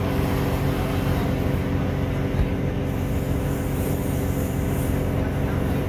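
Class 166 diesel multiple unit under way, its underfloor diesel engine running steadily under a constant rumble of wheels on rail, with a single short knock about two and a half seconds in.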